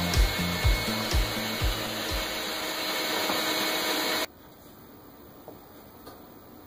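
Power tool running loudly under background music with a thumping beat; the beat fades out, then the tool noise stops abruptly about four seconds in, leaving quiet room tone.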